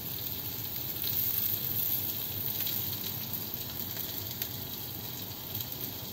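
A steady hiss with a few faint clicks.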